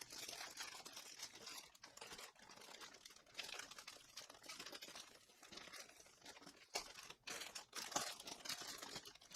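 Motherboard packaging crinkling and rustling as it is opened and handled, with scattered sharp clicks and crackles.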